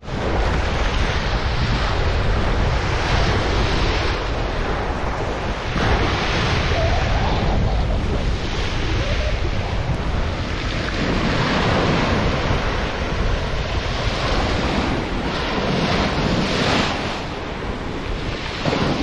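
Waves breaking and washing up a pebble beach, the surf swelling every few seconds, with wind rumbling on the microphone.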